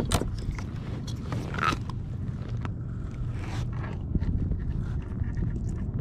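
Small clicks and scrapes of hands working a hook and line out of a small fish, over a low steady rumble.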